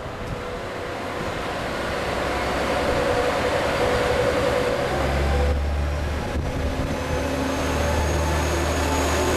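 A train running at a station platform, its rumble building over the first few seconds. A steady low hum sets in about halfway, and a faint high whine rises slowly near the end.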